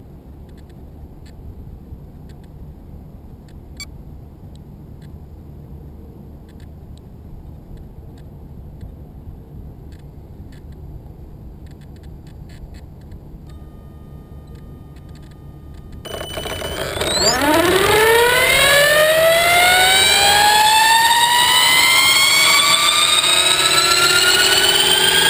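Electric motor and rotor of an Align T-Rex 600 ESP RC helicopter. It is quiet at first with only faint ticks. About 16 seconds in, the motor starts and spools up, a whine rising steadily in pitch as the rotor speeds up and the sound grows loud.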